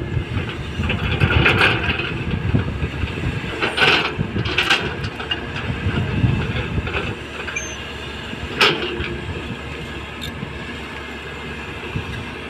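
Heavy diesel machine running with a dense low rumble and several sharp metallic clanks, the rumble easing after about seven seconds into a quieter steady run.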